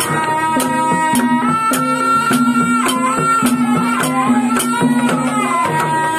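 Live ebeg gamelan accompaniment led by a slompret, a Javanese double-reed shawm, playing a wavering, sliding melody over a repeating low gong-chime figure and drum strokes about twice a second.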